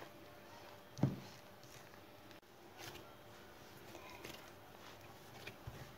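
A hand mixing flour into a soft yeast dough in a bowl and kneading it: faint rustling and squishing, with one soft thump about a second in.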